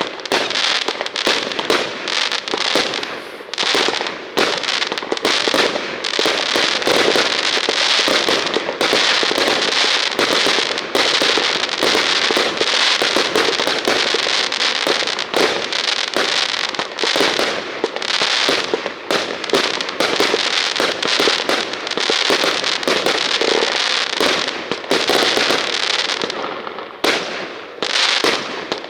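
Fireworks going off in a dense, continuous barrage of rapid bangs and crackling, easing briefly near the end.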